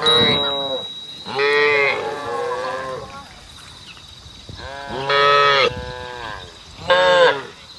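Cattle mooing, calling out to the herd: four separate long moos, one right at the start, the loudest about a second and a half in, then two more around five and seven seconds in.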